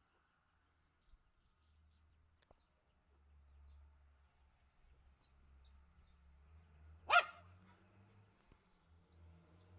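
Swallows flying overhead, giving short high chirps that fall in pitch, scattered all through. About seven seconds in a dog barks once, loudly, over a faint low drone.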